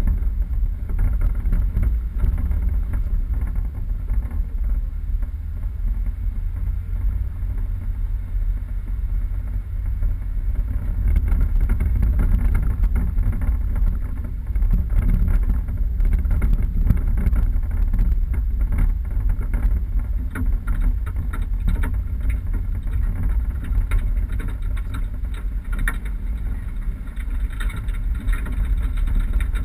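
A 4x4 vehicle driving off-road: a steady low rumble of engine and tyres, with scattered knocks and rattles that grow more frequent partway through.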